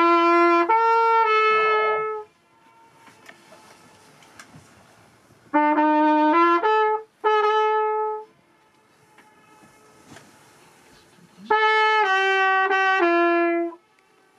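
A brass horn with a trumpet-like tone played live in three short phrases of three or four held notes, with a pause of a few seconds after each. This is the boatman's horn signal at the Königssee rock wall, played so the echo can return in the pauses.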